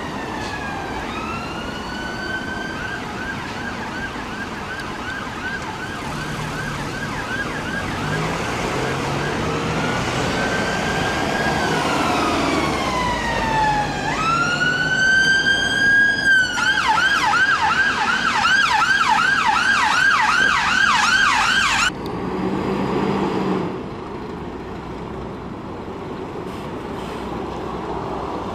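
UK ambulance siren sweeping slowly up and down in its wail, then switching to a fast yelp about three cycles a second, until it cuts off suddenly about two-thirds of the way in. Traffic noise follows.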